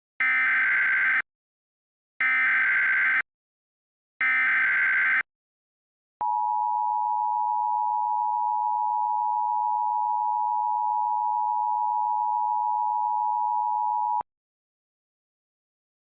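Simulated Emergency Alert System opening: three one-second bursts of SAME header data, a buzzy digital screech, two seconds apart, then the steady two-tone EAS attention signal held for about eight seconds before cutting off. It signals that an emergency alert, here a severe weather statement, is about to be read.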